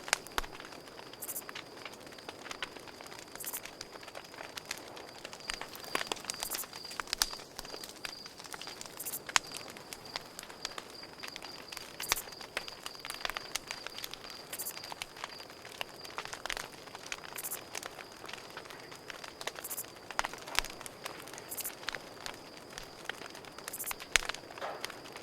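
Campfire crackling, with irregular sharp pops and snaps of burning wood, over a steady high trill of crickets.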